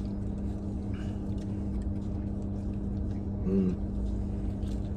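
Steady low hum of a car's cabin while it sits parked, with faint rustling of fast-food wrappers and a short hummed "mm" about three and a half seconds in.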